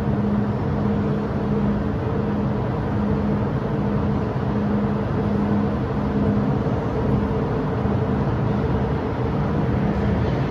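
An MTR M-train electric multiple unit pulling out of the platform past the screen doors: a steady rumble of wheels on rail with a low electric hum from its traction equipment. The hum fades as the last car clears the platform near the end.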